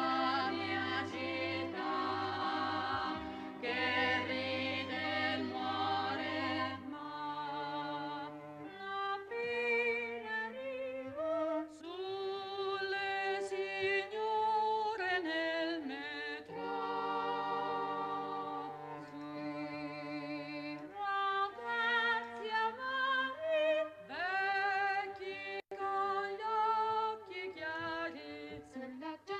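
A vocal ensemble singing together in close harmony, several voices holding long notes that shift in steps. A low steady drone sits under the voices for the first seven seconds or so, then drops out.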